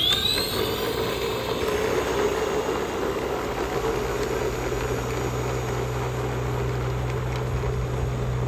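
A motor running steadily with an even hum, opened by a brief sweeping sound.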